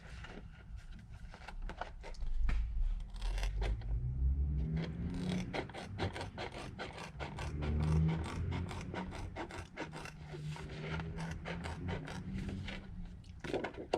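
Irregular clicks, rubbing and scraping of hands handling thin plastic sheet and tools on a work surface. Under them is a low hum that swells twice.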